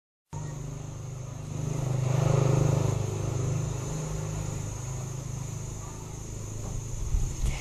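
Outdoor ambience with a steady low hum and a motor vehicle passing, loudest about two seconds in; a few light knocks near the end.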